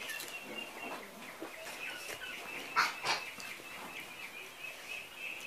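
Ducks calling in the background, with two loud calls close together about three seconds in, over a steady high-pitched pulsing trill.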